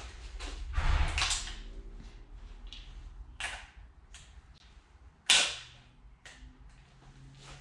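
Handling of a BSA Scorpion Cadet .177 air rifle: a rustle as it is handled, then several separate metallic clicks from its action and one much louder sharp snap about five seconds in.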